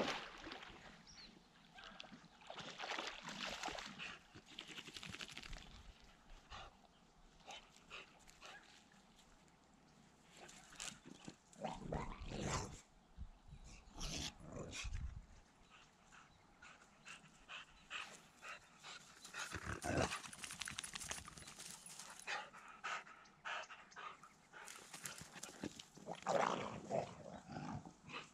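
A dog panting and moving about, with scattered rustles and a few low thumps.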